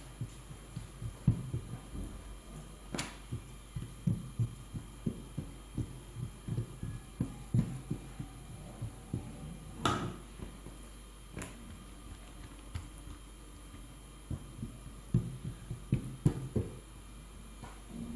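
Irregular soft thuds and knocks, several a second in places, with a few sharp clicks, one loudest about ten seconds in, over a faint steady hum in a small room.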